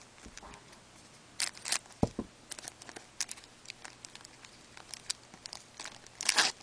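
Trading-card pack wrapper crinkling and rustling as a pack of hockey cards is handled and torn open, with scattered light clicks and a louder rustle near the end.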